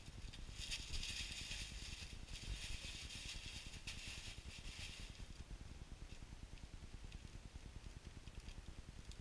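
Tissue packing paper rustling and crackling as it is pulled apart and pushed aside, for about four seconds, then fainter scattered crinkles as a small plastic bag is handled.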